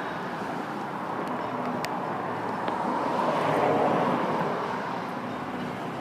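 Steady outdoor background noise that swells and fades about halfway through, with a few faint clicks early on and no clear bird call.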